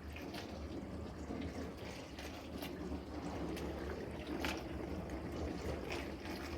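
Farberware compact countertop dishwasher running, water spraying and splashing steadily inside it with small scattered drips and clicks.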